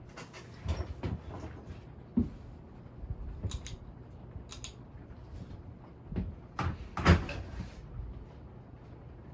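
Nadair Arc-en-ciel 42-inch ceiling fan running on high speed with a steady low hum, and scattered clicks and knocks, the loudest about seven seconds in.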